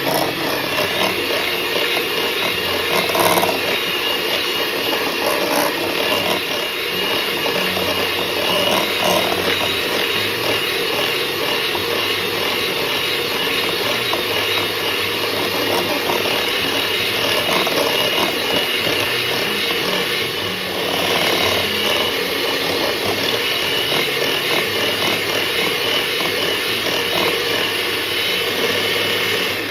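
Electric mixer running steadily, beating butter, sugar and oil at the creaming stage. The motor cuts off suddenly at the end.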